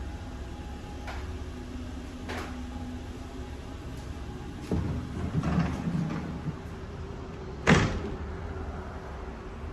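Interior sliding door of a railcar pushed open by hand, rolling along its track for about two seconds midway, then a single sharp clack near the end, the loudest sound. Under it the railcar's steady running rumble.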